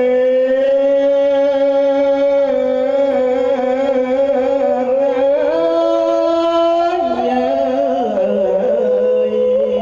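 Traditional Khmer wedding music: long held, slowly gliding melodic notes, with singing.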